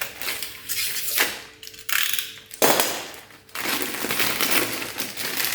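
Stainless steel ball-bearing drawer slides being pulled open and run along their rails: metal sliding with rattling clicks, several short strokes and then a longer rattle.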